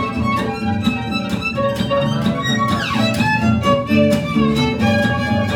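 Live acoustic trio: a violin playing the melody over strummed acoustic guitar and plucked double bass, with a quick falling slide a little before the middle.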